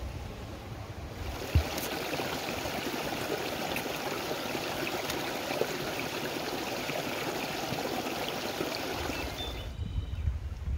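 Shallow creek water rushing and splashing over rocks, a steady even sound that starts suddenly about a second in and stops abruptly near the end. One thump comes just after it starts, and a low rumble on the microphone comes before and after.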